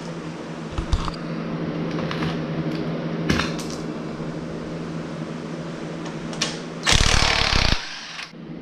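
Wrench and socket clinking on the dirt bike's motor-mount bolts over a steady hum. About seven seconds in, a power tool, likely an impact wrench, runs loudly for just under a second.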